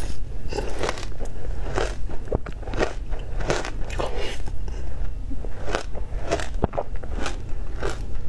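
Close-miked crunching and chewing of frozen shaved ice topped with passion fruit pulp and matcha milk powder: a string of sharp crunchy bites, about one or two a second.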